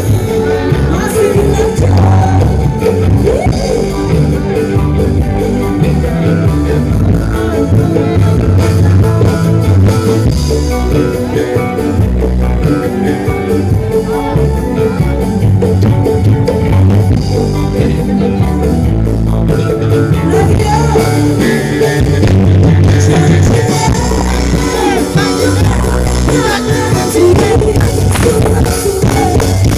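Loud music with singing and heavy bass, played through a sound system that the uploader calls broken.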